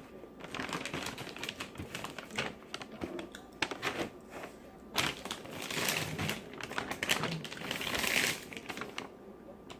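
Close-miked eating of a buttery seafood boil: a dense run of wet mouth smacks and chewing clicks, with longer wet hissing stretches about five and eight seconds in.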